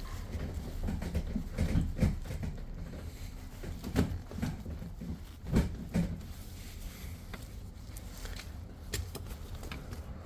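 Irregular knocks, thumps and clicks from handling, with the loudest around two, four and six seconds in. No engine is running.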